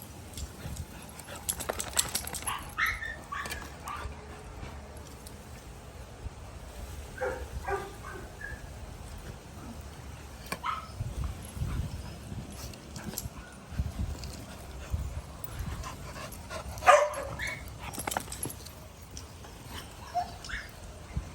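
Small dogs barking and yipping in short, scattered bursts, with small clicks and knocks between; the loudest bark comes a little past the middle.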